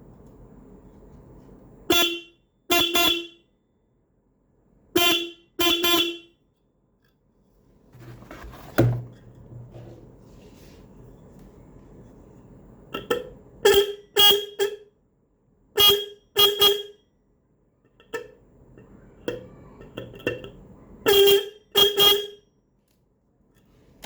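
12-volt electric vehicle horn being test-sounded in about a dozen short honks, mostly in pairs, each a bright, buzzy tone.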